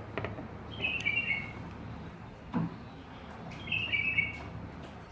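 A small bird chirping: two short phrases of quick, high notes stepping downward, about three seconds apart. A single knock sounds about halfway through.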